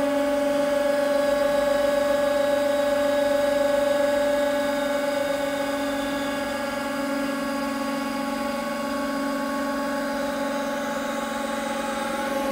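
150-ton hydraulic press running with a steady hum as its ram crushes a steel hex nut flat under a load that rises to about 66 tonnes. The hum eases a little about five seconds in.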